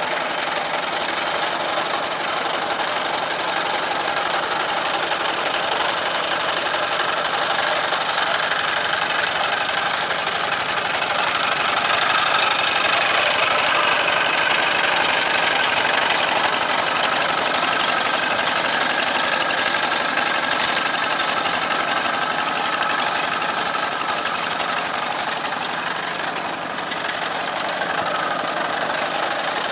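Old Kubota single-cylinder diesel engine on a two-wheel hand tractor, running steadily as it works the cage wheels through a flooded rice paddy to level it. The engine grows louder in the middle as the tractor comes close.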